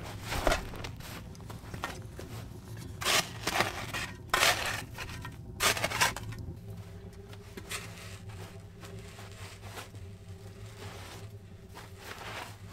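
Steel shovel scraping and scooping loose sandy soil on a dirt floor, about five sharp strokes in the first six seconds, then quieter.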